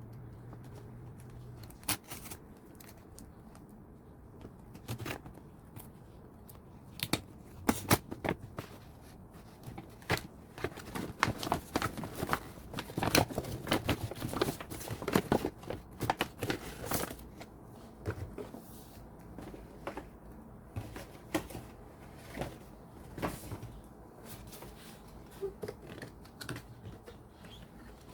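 Packaging being handled and opened by hand: irregular clicks, taps and crinkles of cardboard and plastic, coming thick and fast in the middle stretch.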